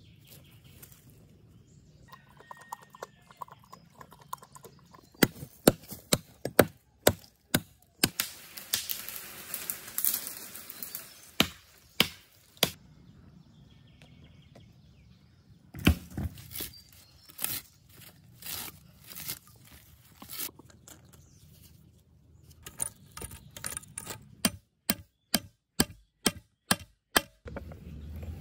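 Sharp knocks and clicks from wood and tools being handled, with a stretch of scraping, rustling noise in the middle. Near the end comes a quick run of clicks broken by sudden dead silences.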